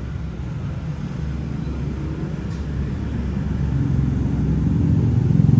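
A passing motor vehicle's engine rumbling, growing louder toward the end.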